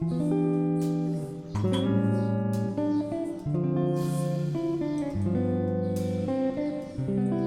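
Background music: an instrumental track led by acoustic guitar, with plucked notes over a bass line.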